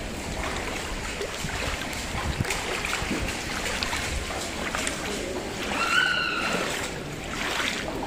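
Footsteps splashing through shallow high-tide floodwater on stone paving, with wind on the microphone. About six seconds in, a short high-pitched call rises briefly over the splashing.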